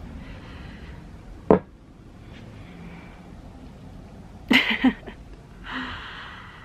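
A sharp knock about a second and a half in, then a short burst of a person's voiced sounds and, near the end, a long breathy exhale.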